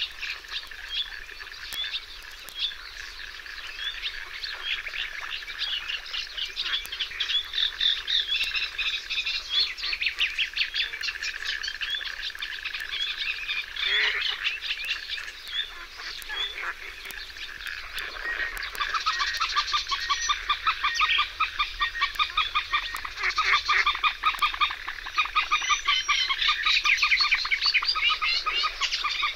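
Many birds calling and singing together in a dense chorus of chirps and short calls. From about 18 seconds in, a fast, evenly pulsing trill joins lower in pitch.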